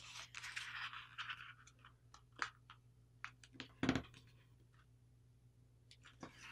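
A sheet of paper being folded by hand, faint: a rustle as it is lifted and bent over in the first second or so, then scattered crisp ticks as the crease is pressed in. A soft thump of hands pressing it flat comes about four seconds in.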